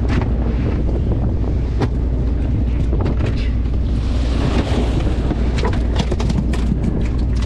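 Wind buffeting the microphone over the steady low drone of a small fishing boat's engine, with a few light clicks and knocks scattered through.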